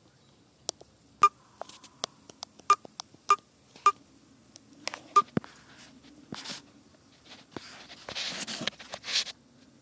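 A string of sharp, irregular clicks and taps, the loudest about a second in, with a faint high steady whine beneath them, then a short burst of rustling near the end.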